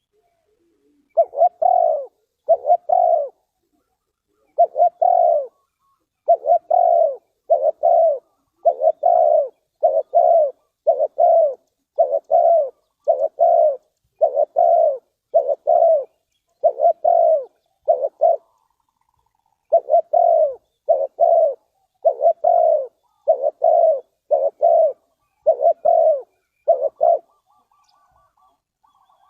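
Spotted dove cooing: a long series of low, separate coo notes about one a second, with a short break about two-thirds of the way through.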